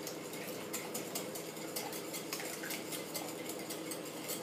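Wire hand whisk beating eggs and sugar in a glass bowl, the wires clicking rapidly and irregularly against the sides of the bowl as the mixture is whipped until pale and foamy.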